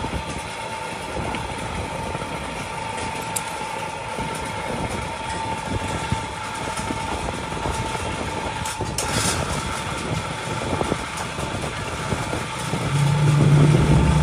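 A machine running steadily: a dense noise with a constant high whine through it.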